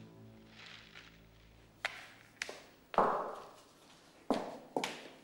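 Footsteps on a hard floor: about six uneven steps, the loudest about three seconds in, ringing briefly in the room.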